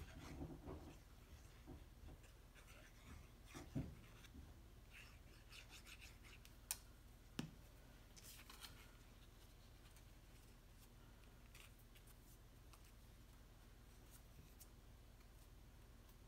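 Faint rustling and rubbing of cardstock pieces being handled and pressed together, with two sharp clicks about seven seconds in. After that, near silence with room tone.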